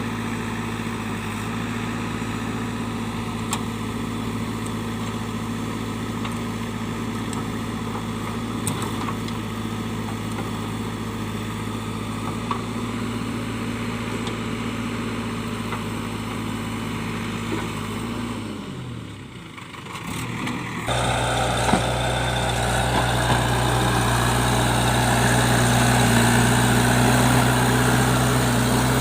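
Diesel engine of a JCB 3DX backhoe loader running steadily. About two-thirds of the way through its note drops and dies away for a moment, then it comes back suddenly, louder and with more rattle.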